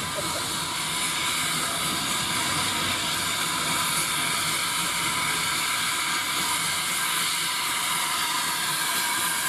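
Steady hiss of escaping steam from the saddle tank locomotive 1340 Trojan as it drifts slowly along the line with its coaches, with no distinct exhaust beats.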